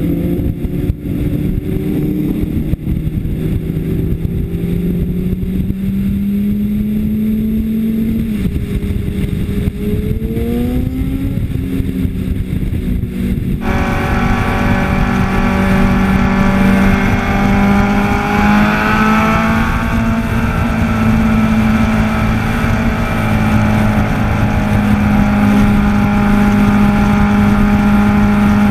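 2005 Honda CBR600RR's inline-four engine running hard on track, heard onboard with wind rush on the microphone. Its pitch climbs as the bike accelerates out of a corner about ten seconds in, then holds high revs down the straight. Partway through, the sound suddenly turns brighter.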